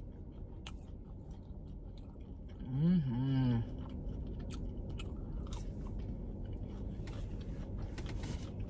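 Close-up chewing of a chicken nugget, with small wet mouth clicks. A hummed "mmm" of enjoyment about three seconds in.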